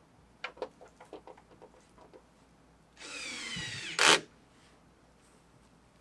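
Cordless drill/driver driving a grille bolt: a few light clicks and taps of handling, then about a second of motor whine falling in pitch, ending in a short loud burst.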